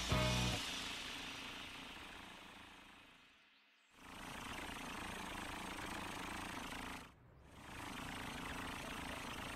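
Cartoon fire truck engine sound effect. A brief loud note sounds at the very start, then a steady running engine fades away as the truck drives off. The engine sound starts again abruptly about four seconds in, breaks off briefly near the seven-second mark and resumes.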